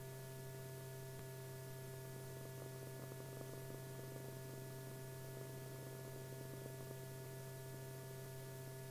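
Faint, steady electrical hum with several fixed tones over a light hiss: background hum of the old film soundtrack, with no work sounds heard.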